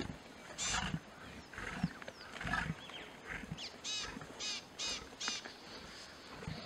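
A pride of young lions and lionesses growling and snarling as they feed together on a giraffe carcass, with a string of short, harsh calls.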